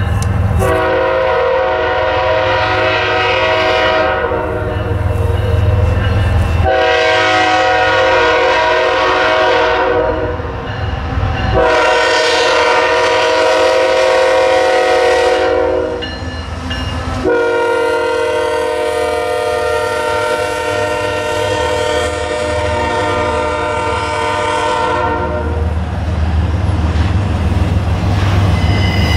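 Air horn of a BNSF ET44C4 diesel locomotive leading a freight train, sounding a multi-note chord in four blasts: three of about four seconds each and a last one held about twice as long. The locomotives' engines rumble between the blasts and grow louder near the end as the train rolls past.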